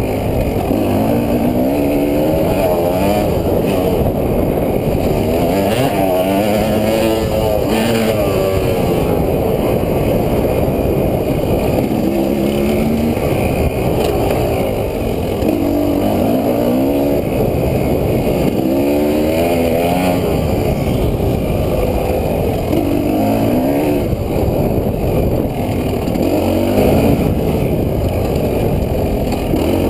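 KTM 300 two-stroke enduro motorcycle engine revving up and down over and over as the bike is ridden along a dirt trail.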